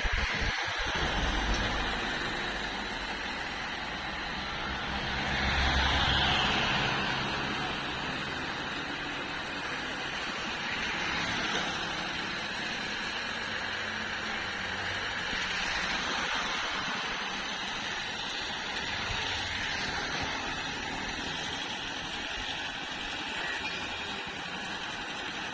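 Steady road-vehicle noise, with one vehicle passing louder about six seconds in.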